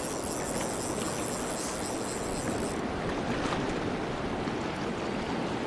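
Surf washing over shallow water, with wind on the microphone: a steady rushing noise.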